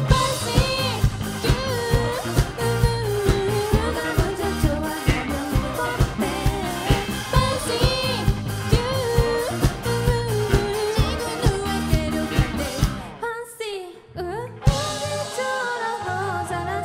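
Pop-rock band with a singer playing live, the sung melody over a steady drum beat and bass. About 13 seconds in the band drops out for about a second and a half, leaving a few sliding notes, then comes back in with a hit.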